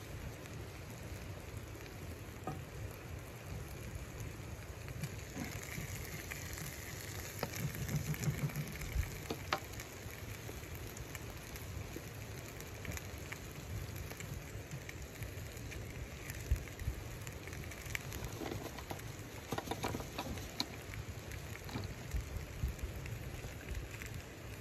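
Chicken pieces frying in a skillet on a wood stove: a steady sizzle with a few sharp pops now and then.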